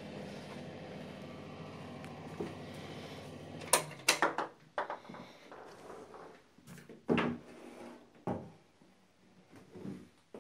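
A steady hum in a small tiled bathroom stops abruptly about four seconds in as a door is shut, followed by several sharp knocks and clunks of a door and fittings being handled.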